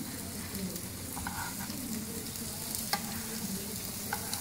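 Chapli kababs frying in oil on a flat griddle over medium flame, a steady sizzle, while they are turned over with a metal spoon. A couple of sharp metallic clinks come about three seconds in and again near the end.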